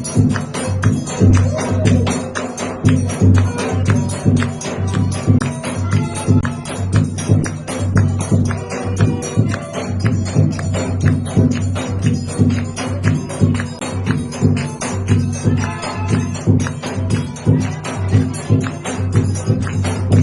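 Forró music playing with a quick, steady percussive beat.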